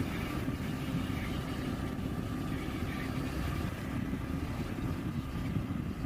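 A vehicle engine running steadily: a low, even rumble with a faint held hum.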